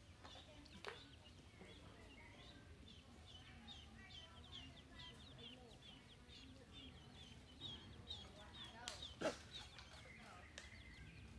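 Baby chicken chick peeping over and over, faint short high peeps about two a second. A sharp click comes about a second in, and a couple more near the end.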